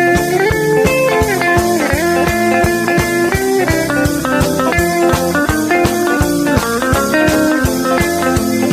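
Instrumental break of an upbeat rock and roll song: a lead guitar line with bending notes over a steady drum and bass beat.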